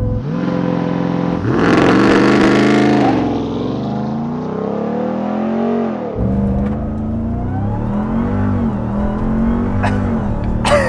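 2021 Ram 1500 TRX's supercharged 6.2-litre V8 at full throttle off a launch-control start. The revs climb and drop back at each upshift. Heard first inside the cabin, then from outside the truck about six seconds in.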